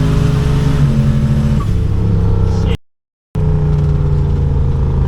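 A car engine running steadily with an even pitched note that steps down about a second and a half in. The sound cuts out completely for about half a second near the middle, then resumes at a steady pitch.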